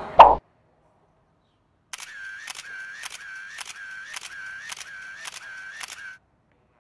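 A sharp loud knock right at the start, then a rapid run of camera shutter clicks, about three a second for some four seconds, as a sound effect.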